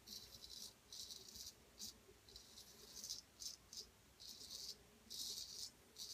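Gold Dollar 800 straight razor scraping through lathered beard stubble on the cheek, in a series of short, faint, high-pitched scrapes, one per stroke.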